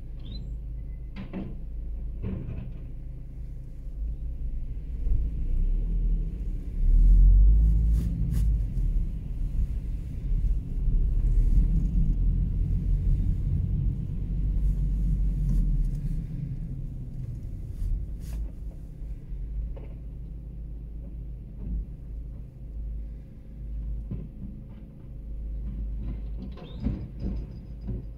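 Rear-loading refuse truck with a Faun Variopress body: a few clanks as the bin lifter tips a wheelie bin, then the truck's engine running loud for about ten seconds as it pulls away and drives to the next stop, settling quieter, with more clanks near the end as the next bins are hooked onto the lifter.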